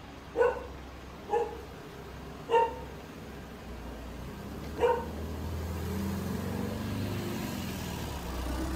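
A dog barks four times, single short barks spaced one to two seconds apart. After that, a motor vehicle's low engine rumble rises and holds through the second half.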